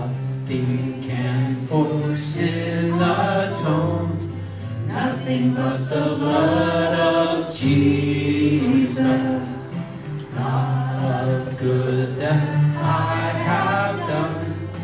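A worship song sung live: a woman singing into a microphone, with acoustic guitar accompaniment and other voices joining in.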